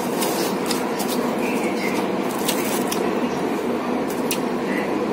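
Close-up chewing of eggplant: wet mouth smacks and sharp clicks at irregular moments, over a steady background noise.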